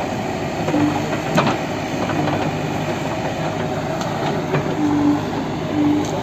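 Heavy machinery working: an engine running steadily under a continuous clatter, with a few short squeals and sharp metallic knocks.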